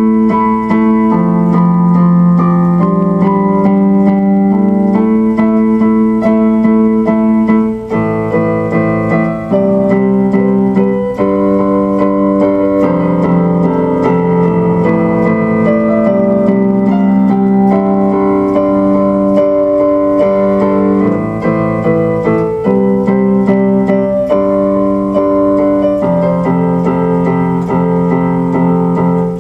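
Background music played on keyboards, sustained piano and electric-piano chords changing every second or two.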